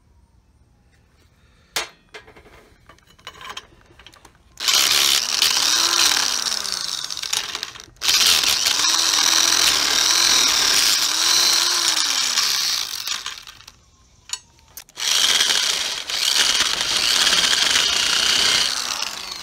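Hand-held electric drill running a step drill bit into a thick steel mower blade in three long stretches of drilling, its motor pitch rising and falling under load; the bit has too little bite to cut the thick blade steel. A single sharp click comes about two seconds in, before the drilling starts.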